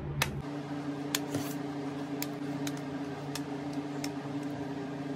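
Hair flat iron clicking shut on strands of hair, several separate sharp clicks about a second apart, over a steady low hum.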